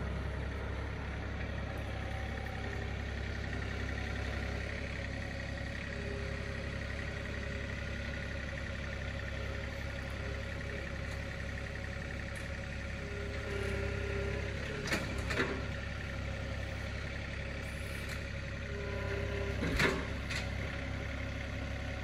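John Deere 3032E compact tractor's three-cylinder diesel engine running steadily as the tractor drives up and works its front loader grapple. A few short knocks come about 15 and 20 seconds in.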